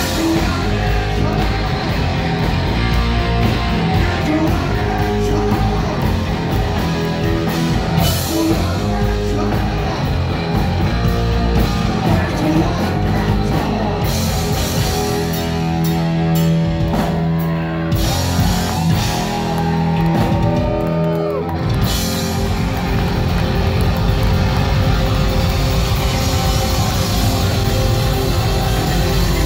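Heavy metal band playing live: distorted electric guitar, bass and drum kit, with sung vocals.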